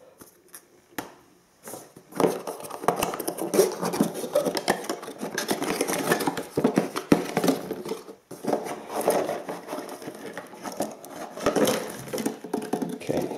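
Handling noise from camera-box packaging: a cardboard box insert and plastic-bagged mounts rustling and clattering in a dense run of small knocks and crinkles. It starts about two seconds in and breaks off briefly a little after halfway.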